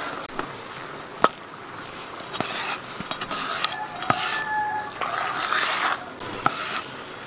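Thick pumpkin and glutinous rice flour dough being stirred in a stainless steel bowl: uneven scraping and rustling strokes, with three sharp knocks of the utensil against the bowl.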